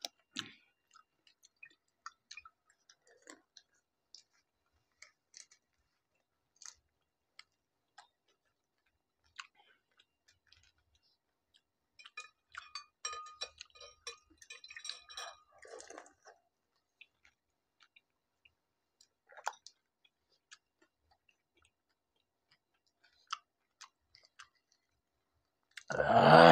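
Crisp pani puri (golgappa) shells being cracked open and chewed: scattered small crunches and clicks, thickening into a run of crackling crunches for a few seconds in the middle. A short loud burst comes at the very end.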